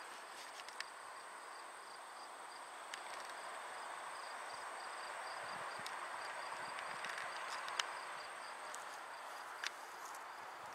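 Insects singing in summer grass: a faint, steady, regularly pulsing chirp over a soft outdoor hiss that swells slightly midway, with a few light clicks.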